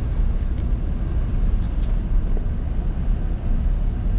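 Steady low road and engine rumble inside a moving vehicle's cabin.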